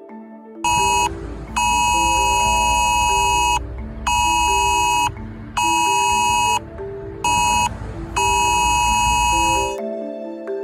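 Mobile phone emergency alert: the loud, harsh, pulsing alarm tone of the UK Emergency Alerts system, in on-off bursts of about one to two seconds, with the phone's vibration buzzing underneath. Soft mallet background music plays behind it.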